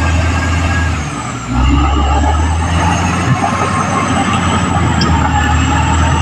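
Caterpillar D6R XL bulldozer's diesel engine running, with a steady high whine over its low hum; the engine sound drops briefly about a second in and picks back up.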